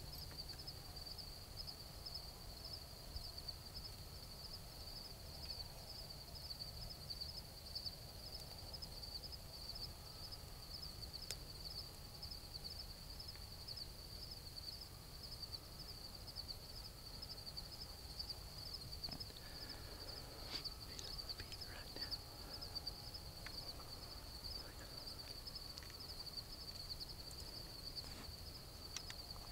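A steady, high-pitched chorus of trilling insects, pulsing rapidly without a break. A few faint rustles sound about two-thirds of the way through.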